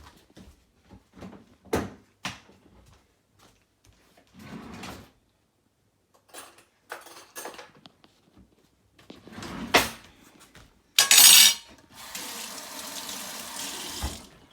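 Kitchen clatter of scattered knocks and clinks from dishes and utensils, then a tap running. The water comes on with a loud splash about eleven seconds in, runs steadily for about two seconds, and stops shortly before the end.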